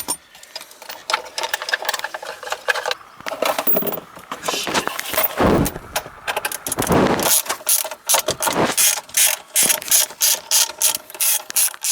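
Ratchet wrench clicking in quick runs as it backs out the 12 mm bolts holding the shifter assembly, with some louder handling noise around the middle.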